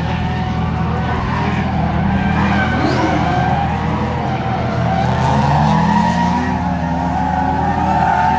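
Drift cars in a tandem run, a Toyota Corona chased by a 1000 hp 7-litre Nissan 180SX, with engines revving up and down and tyres squealing as they slide through the corners.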